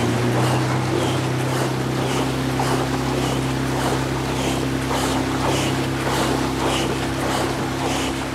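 Sprint kayak paddles hitting the water in a fast, even rhythm, about two splashing strokes a second, during a flat-out sprint effort. Underneath is the steady drone of a motorboat engine running alongside.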